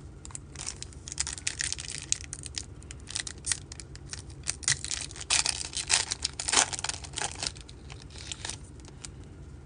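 Foil wrapper of a baseball card pack being torn open and crinkled, a long run of quick crackling rips.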